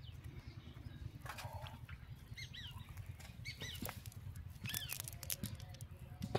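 Rustling and light clicking of a cast net and its chain of sinkers being handled, over a steady low rumble, with short chirping bird calls several times through the middle.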